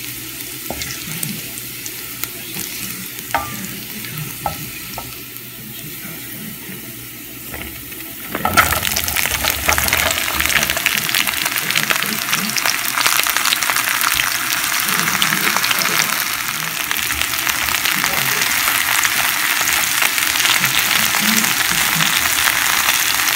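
Chopped garlic sizzling in hot corn oil, with a few clicks of a wooden spatula against the pan. About eight seconds in, the eggplant pieces go into the pan and the frying suddenly becomes much louder, a dense sizzle that holds to the end.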